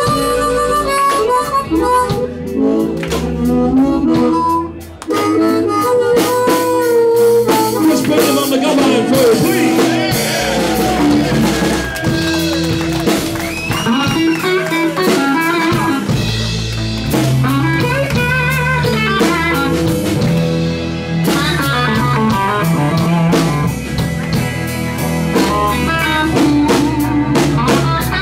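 Live blues-rock band playing, with a harmonica solo over electric guitars and drums.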